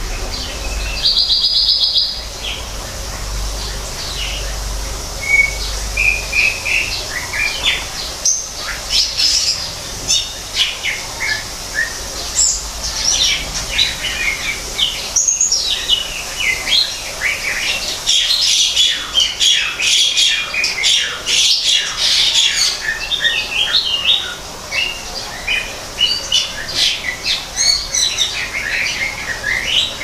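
Greater green leafbird (cucak ijo) singing a fast, varied song of short chirps, whistles and trills, busiest around the middle.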